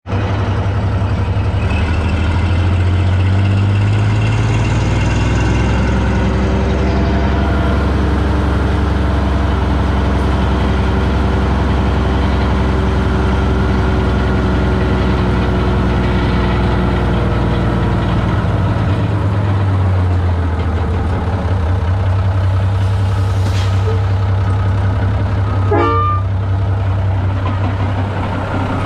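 Heavy diesel engines running, with a truck engine changing pitch as it drives over sand and bulldozers working nearby. Near the end comes a brief rising squeal.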